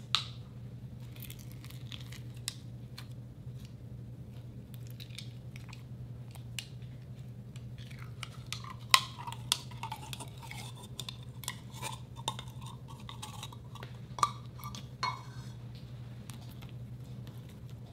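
Slime being squeezed and pulled out of a clear plastic tub by hand: scattered sticky clicks and squelching pops, a few louder ones in the second half, over a steady low hum.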